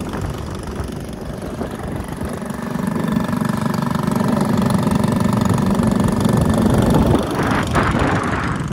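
Small outboard motor on an inflatable dinghy running under way, getting louder a few seconds in. A brief rush of noise near the end.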